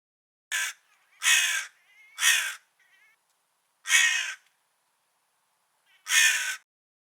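Crow cawing: five harsh caws, the first one short, with longer pauses before the last two.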